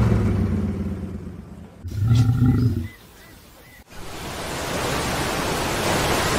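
A string of separate sound effects: a low rumbling roar fading away, a short low growl-like sound about two seconds in, a brief pause ending in a click, then a steady rushing noise from about four seconds.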